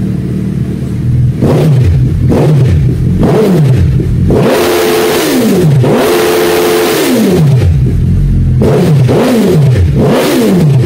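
Suzuki Hayabusa's 1300 cc inline-four revved through aftermarket dual exhausts in a series of sharp throttle blips. The revs fall back toward idle after each, and twice in the middle they are held high for over a second.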